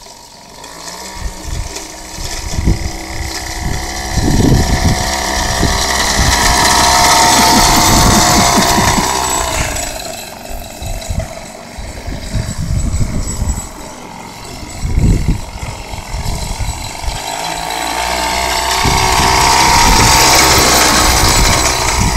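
Small engine of a miniature John Deere tractor running as it drives over gravel, swelling louder twice as it comes close, with tyres crunching on the gravel. Low thumps come and go throughout.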